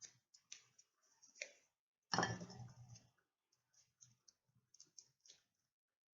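Scattered light clicks and small handling noises, with one louder, fuller noise about two seconds in that lasts most of a second.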